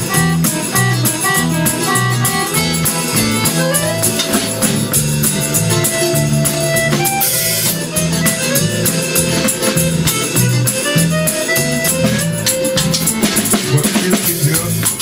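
Chromatic button accordion playing an instrumental break in a lively Odessa street-song tune: a melody over a steady bass-and-chord accompaniment, with a steady beat of light percussive clicks.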